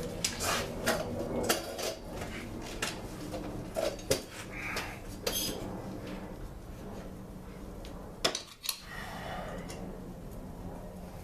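Small metal engine parts and hand tools clinking and clattering on a workbench in irregular knocks, over a steady low hum.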